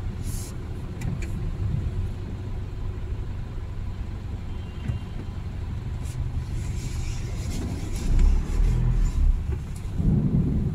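Car cabin sound in heavy rain: a steady low rumble of the car and traffic, with faint ticks of rain on the windscreen. A louder low rumble comes about eight seconds in.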